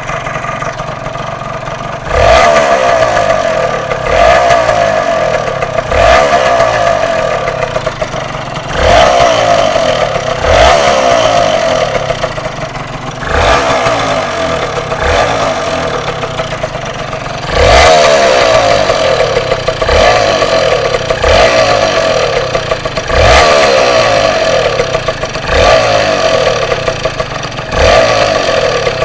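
Yamaha TZR125 (4JB) single-cylinder two-stroke motorcycle engine running and being blipped repeatedly. It revs up sharply about every two seconds and falls back toward idle in between, with a rattly edge that the owner calls an odd sound.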